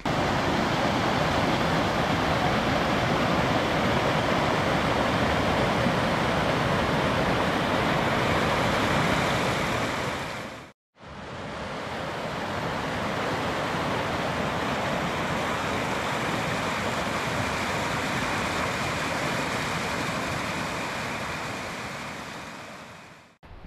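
A fast creek rushing and splashing over rocks in small white-water cascades, a steady rush of water. It cuts out for a moment about eleven seconds in, then carries on slightly quieter and fades away at the end.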